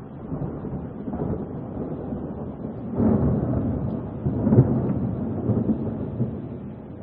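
Rolling thunder over rain: a low rumble builds, swells sharply about three seconds in and again a moment later, then dies away.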